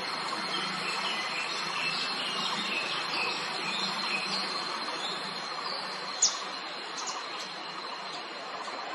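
Small birds chirping with short high notes over a steady, thin, high insect drone. One sharp falling chirp about six seconds in is the loudest sound, followed by a couple more quick chirps.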